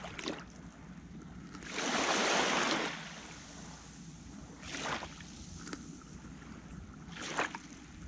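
Sea waves washing onto the shore: one larger wash about two seconds in, then two shorter ones near the middle and near the end. Low wind rumble runs under them.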